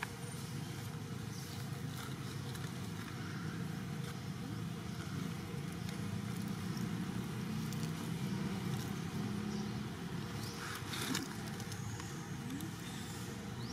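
Steady low rumble of background noise, with a short crackle about eleven seconds in.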